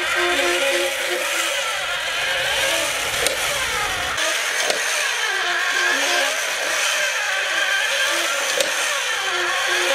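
Battery-powered Masters of the Universe Spydor toy walking: its small electric motor and plastic gears whir steadily while the red legs clatter in a repeating cycle about once a second.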